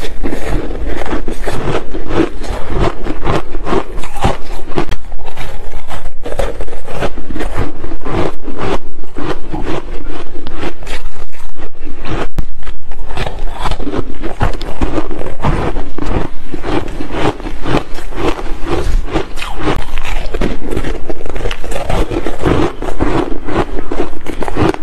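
A mouth chewing soft, powdery ice, close-miked: continuous, dense, irregular crunching as the granular frozen chunks are bitten and ground between the teeth.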